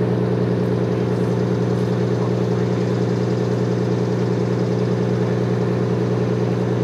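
A large engine idling steadily with an even, unchanging hum.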